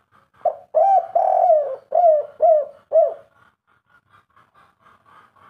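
Spotted dove cooing: one phrase of about six notes over some three seconds, the second and third notes drawn out and the last ones short, each note falling away at its end. It is the three-part 'kuk 3' coo type that keepers prize.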